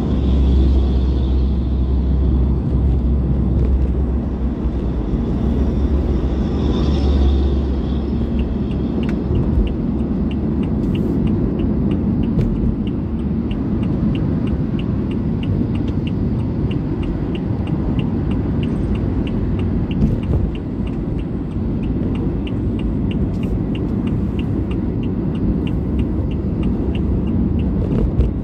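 Steady road and engine rumble heard inside a moving car's cabin, heaviest and deepest in the first several seconds. From about nine seconds in, a light, even ticking runs alongside it, about twice a second.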